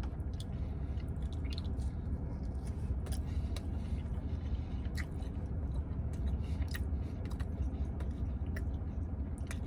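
Close-up chewing and biting of plant-based buffalo wings made from seitan, with small scattered mouth clicks, over a steady low hum.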